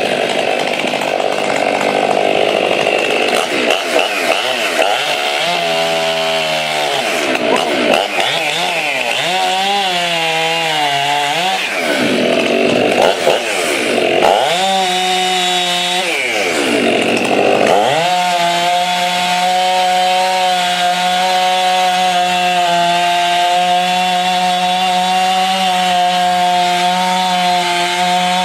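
Large ported chainsaw cutting wood. In the middle its engine speed rises and falls over and over as it loads and unloads in the cut. For the last ten seconds it holds a steady high speed.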